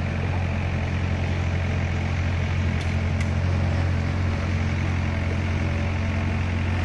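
Heavy dump truck's diesel engine running steadily at a low, unchanging pitch as the truck moves slowly over soft dirt. Two faint clicks about three seconds in.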